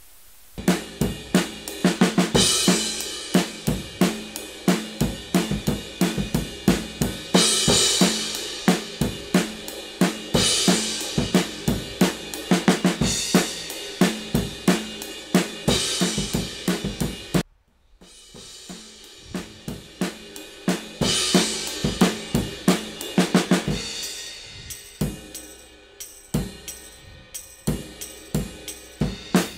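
A drum kit loop (kick, snare, hi-hat and cymbals) playing back through a Kazrog True Iron transformer-saturation plugin chain, the regular beat cutting out for a moment a little past halfway and then starting again.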